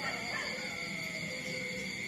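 Nursing puppy whimpering: a thin whine that slides down in pitch, over a steady high-pitched drone.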